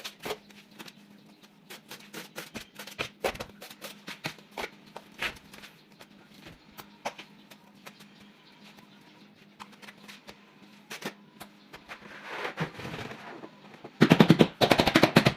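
Irregular taps and knocks from tile-fixing work, over a faint steady low hum, ending about fourteen seconds in with a loud run of rapid knocks.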